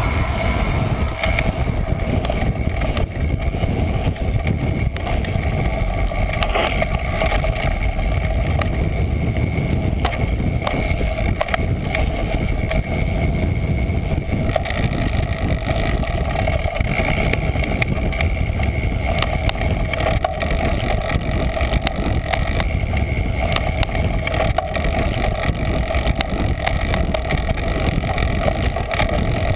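Wind rumble and road noise picked up by a GoPro mounted on a mountain bike descending a rocky trail at speed, with many small knocks and rattles from the bike over rough ground.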